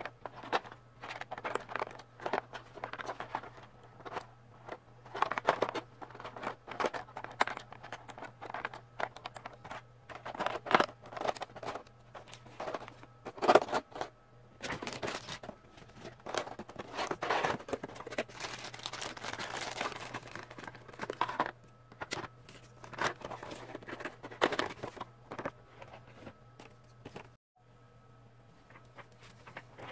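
Toy packaging being opened and handled: irregular crinkling, rustling and tearing of plastic and cardboard, stopping near the end, over a steady low hum.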